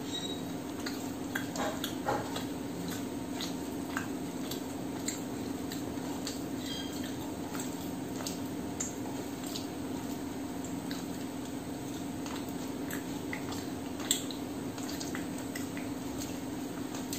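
Eating sounds: fingers mixing and scraping rice on a steel plate, with small clicks and wet mouth noises from chewing, and one sharper click against the plate near the end. A steady low hum runs underneath.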